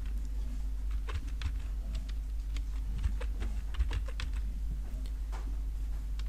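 Computer keyboard being typed on: a run of quick, irregular key clicks, over a steady low hum.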